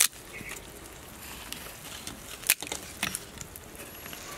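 A few sharp, crisp crackles and taps over a low steady background, the sharpest about two and a half seconds in, as pieces of fried beancurd skin are laid into a charcoal fire pot with chopsticks.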